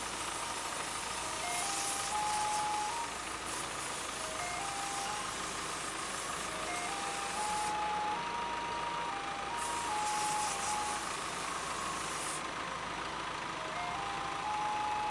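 Electronic warning melody from a truck-mounted crane and aerial work platform: a simple beeper tune of single notes that climbs step by step and repeats every few seconds. Under it the machine's engine and hydraulics run steadily, with a hiss that comes and goes.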